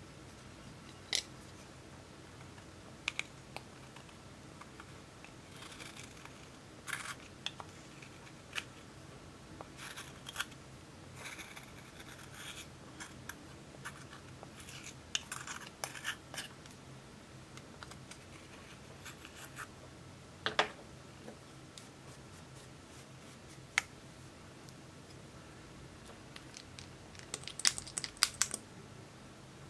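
Small metal spatula scraping and crumbling a pressed powder makeup cake out of its plastic compact, in scattered scratchy strokes with sharp clicks and taps of the case. Near the end comes a quick run of sharp clicks as a plastic lip tint tube is handled.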